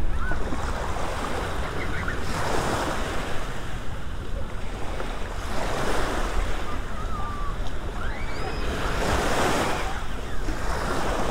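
Small Gulf of Mexico waves washing in over the shallows, swelling and breaking about every three to four seconds.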